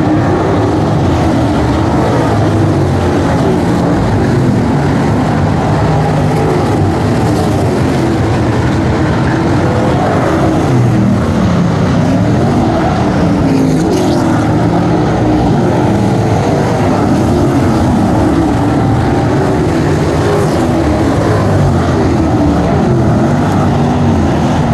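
Several dirt-track Street Stock race cars running at race pace, loud and continuous. The engine notes keep rising and falling in pitch as the cars accelerate and lift around the track.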